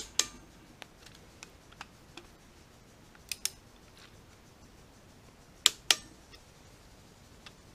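Click-type torque wrench clicking as the oil pump housing bolts reach their set torque of 18 foot-pounds: three sharp double clicks a few seconds apart, with a few fainter ticks between.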